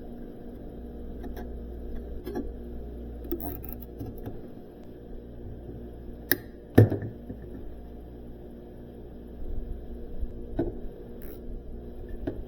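Sub-Zero 650 freezer's compressor running with a steady hum, the system freshly recharged with R134a and its back pressure settling. Scattered clicks and knocks come over it, the loudest a thump about seven seconds in.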